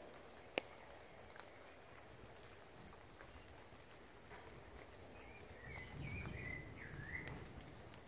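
Faint forest ambience with small birds chirping: thin high chirps throughout, and a run of short chirps bending up and down in pitch about six to seven seconds in, over a low rumble. A single sharp click about half a second in.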